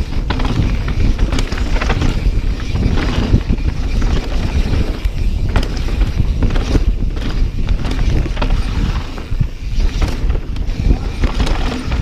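Mountain bike descending a wet trail: wind buffeting the camera microphone over a steady rumble of tyres on dirt, with the bike clattering and rattling in many short knocks over roots and bumps.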